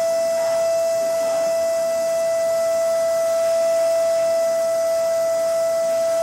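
A steady, unwavering single-pitched tone that holds at one level throughout, with faint overtones above it.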